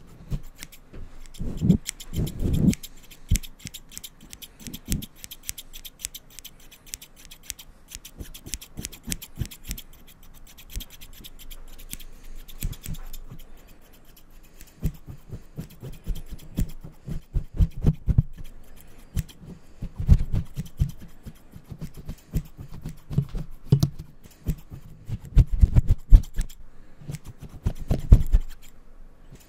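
Barber's scissors snipping close to the microphone in quick runs of crisp clicks, mixed with scratching and occasional soft low thumps from handling around the mic.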